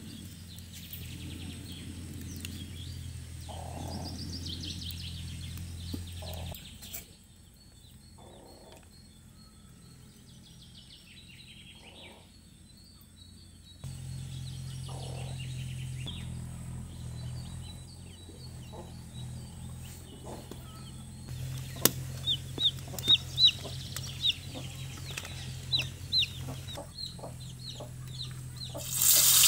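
Chickens clucking and small birds chirping in the background over a steady low hum, with a few sharp clicks in the last few seconds.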